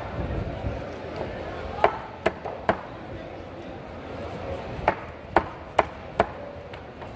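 Large knife chopping a trevally into steaks, each stroke a sharp knock of the blade through the fish onto the cutting board: three chops about two seconds in, then four more near the end, about two a second.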